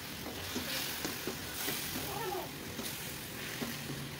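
Spice paste and tomato sizzling in a non-stick wok, with the spatula knocking now and then as it stirs, and a short cat meow about halfway through.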